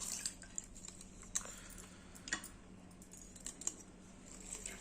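Scattered light clicks and taps of lemons being squeezed for their juice, a few short sharp sounds spaced irregularly about a second apart, over a faint steady hum.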